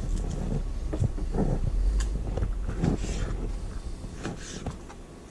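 Fillet knife slicing king mackerel fillet into chunks on a plastic cutting board, with a few soft knocks and handling sounds and a sharp click about two seconds in. Under it runs a low rumble on the microphone that fades near the end.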